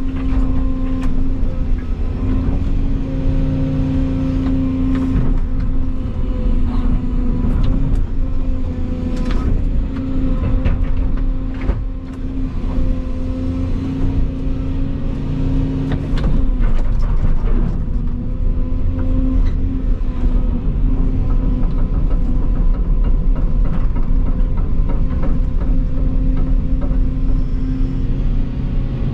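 Volvo EC220 excavator's diesel engine running steadily with a constant hydraulic hum, while scattered knocks and clatters come from the machine working.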